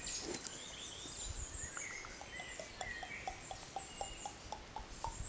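Woodland birds singing and calling, several overlapping chirps and warbles. Near the end comes a quick run of soft ticks, about five a second.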